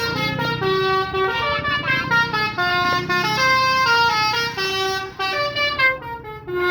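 Basuri telolet bus horn, its trumpets mounted under the bus, playing a tune: a fast run of steady multi-tone notes, each held a fraction of a second before stepping to the next pitch.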